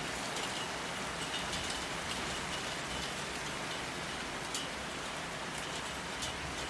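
Steady rain falling, a dense even hiss with many sharp clicks of single drops hitting a surface.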